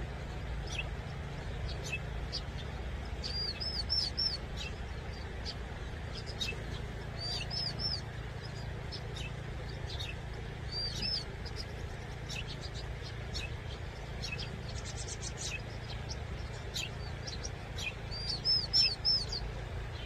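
Vinous-throated parrotbills calling: scattered short high chirps and several quick runs of three or four arched notes, the loudest runs about four seconds in and near the end, with a fast rattling trill around the middle.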